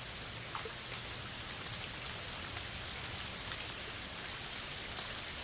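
Steady rain ambience: an even hiss of rainfall with occasional distinct drops landing.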